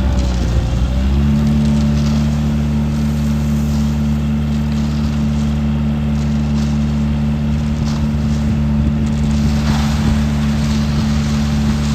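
Engine of heavy road-construction machinery running steadily. About a second in, its pitch shifts, then holds even.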